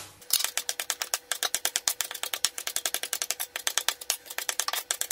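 Kitchen knife rapidly chopping parsley on a cutting board: a fast, even run of sharp knocks, about eight a second.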